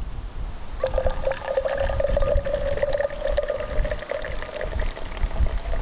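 Coffee poured from a travel French press into an insulated metal tumbler, starting about a second in. The pitch of the filling cup rises slowly as it fills. Wind rumbles on the microphone underneath.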